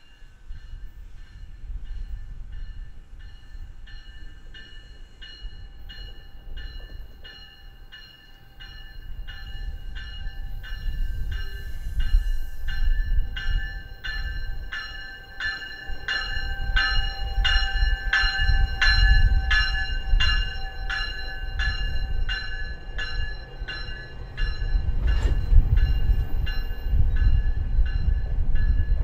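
A GO Transit Bombardier BiLevel passenger train pulls in and passes close by: wheels and cars rumble, building toward the end. Through it a bell rings steadily about twice a second, growing louder as the train nears. One sharp knock comes near the end.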